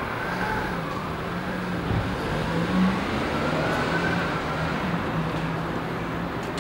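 Steady road traffic noise, with a low hum that breaks off now and then.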